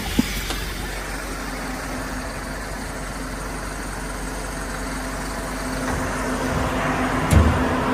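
MAN TGL 8.180's four-cylinder diesel engine idling steadily, with a steady hum that grows louder near the end. There is a sharp click just after the start and a heavy thump near the end.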